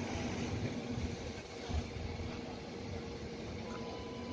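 A diesel truck engine idling with a steady hum and low rumble.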